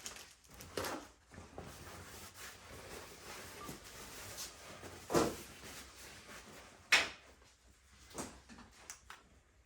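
Parts of a 700R4 automatic transmission being handled during teardown: scattered knocks and clicks of metal pieces, with a dull thud about five seconds in and a sharp click about two seconds later.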